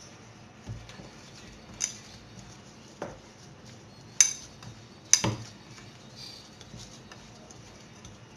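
Biscuit dough being kneaded by hand in a white bowl, with a handful of sharp clinks and knocks about a second apart, the loudest two about four and five seconds in.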